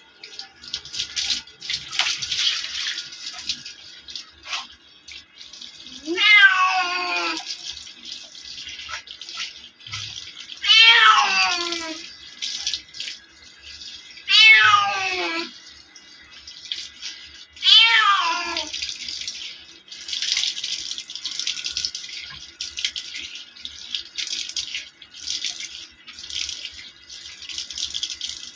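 A wet cat meowing loudly four times during its bath, each meow about a second long and falling in pitch, over splashing and running water.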